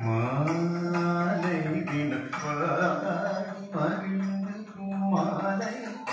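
Carnatic vocal music for a varnam: a voice sings long notes that slide and bend, over a steady low accompaniment.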